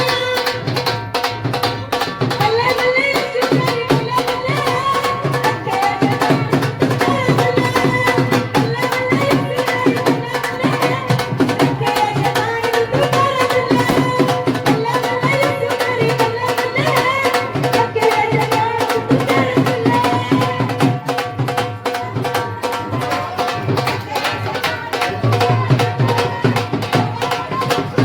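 Loud, upbeat devotional music driven by fast, dense hand-drum percussion, with a melody line over it.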